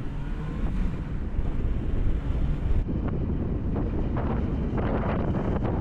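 Wind rushing over the microphone of a moving motorcycle, over a steady low rumble of the bike and road.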